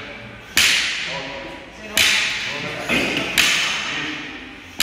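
Barbell with bumper plates set down on a rubber gym floor at a steady pace of touch-and-go deadlift reps: a sharp impact with a ringing rattle of the plates about every one and a half seconds, three in a row and a fourth at the very end.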